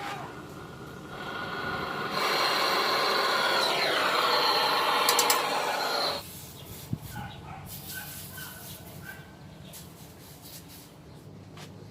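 A loud, steady gas hiss builds from about a second in and stops abruptly about six seconds in. Scattered small clicks and taps of tool handling follow.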